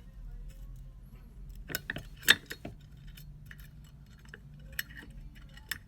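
Small steel parts of an AR-15 magazine catch clicking and clinking as the button is pushed in against its spring on the lower receiver. A quick cluster of sharp clicks comes about two seconds in, the loudest in the middle of it, then a couple of single clicks near the end.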